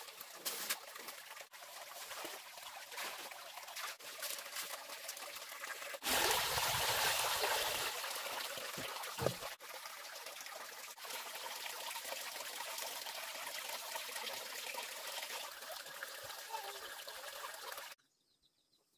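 Liquid trickling and splashing into a plastic basin as coloured plant juice is wrung from a cloth bundle. The sound grows louder about six seconds in, then runs steadily and cuts off abruptly near the end.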